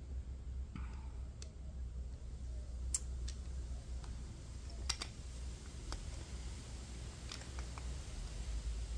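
A screw being turned by hand with a screwdriver into a pine block through a pre-drilled pilot hole: scattered sharp clicks and small ticks of the driver and screw at irregular spacing, over a low steady hum.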